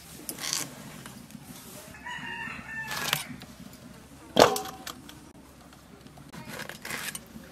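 A domestic rooster crows once about two seconds in, the call lasting about a second. About four and a half seconds in comes a single sharp knock with a short metallic ring, the loudest sound. Scattered short scrapes of a knife cutting bottle gourd run through the rest.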